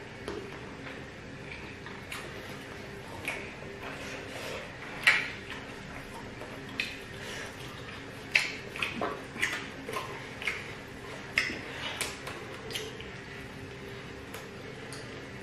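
Two people eating jollof rice with their hands: scattered short mouth smacks and clicks of fingers and food against plates, the loudest about five seconds in and a cluster near the end, over a faint steady hum.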